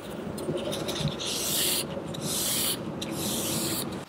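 Paper tissue rubbed along a metal palette knife to wipe off paint: three long, hissy wiping strokes about a second apart.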